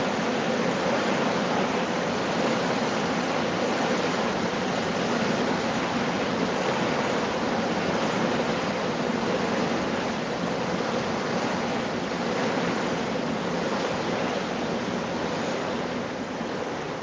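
Steady rushing noise with no distinct events, easing off slightly near the end.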